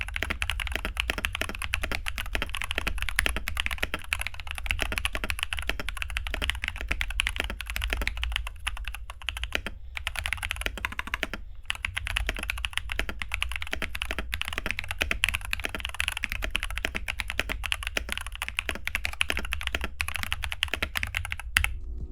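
Fast, continuous typing on a mechanical keyboard with Glorious Panda tactile switches, with a couple of brief pauses, stopping just before the end.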